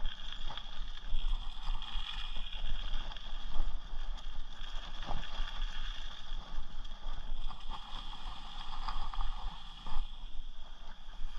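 Mountain bike rolling along a dirt trail: tyres on packed earth and gravel, with small rattles and knocks from the bike over bumps and a low rumble of wind on the microphone.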